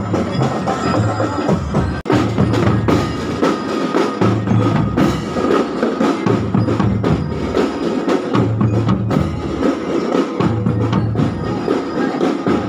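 Percussion-led marching music: drum strikes over a pulsing low beat with a sharp, woody clicking rhythm. The sound cuts out for an instant about two seconds in.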